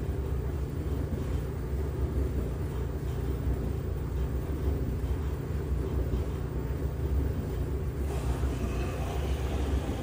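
LG washing machine running with a steady low rumble.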